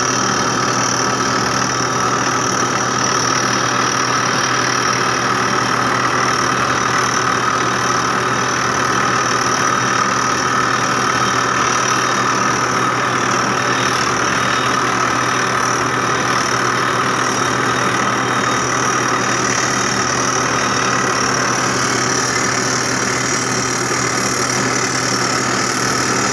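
Crawler rock drill rig boring into rock: its engine running steadily under load and the drill hammering without a break as flushing air blows rock dust out of the hole.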